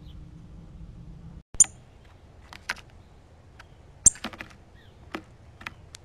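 Northern cardinal at a seed dish: a run of short, sharp, high chip notes and clicks. The loudest comes about a second and a half in and again about four seconds in, with fainter ones between and after.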